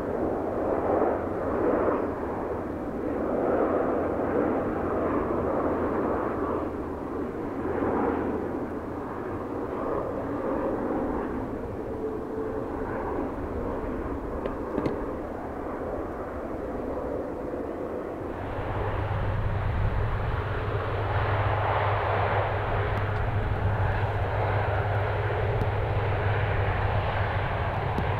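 Airbus A330 Voyager's twin Rolls-Royce Trent turbofans running steadily as the jet flies a low approach. About two-thirds in the sound switches abruptly to a fuller, steadier jet engine noise with a deep hum as a Voyager rolls along the runway.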